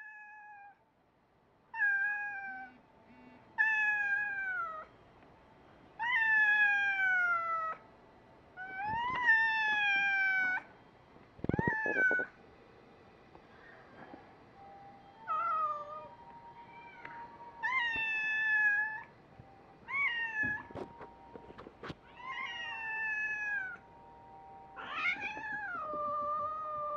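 Calico domestic cat meowing over and over, about eleven long drawn-out meows that mostly fall in pitch. This is the call she makes when she wants to be let outside.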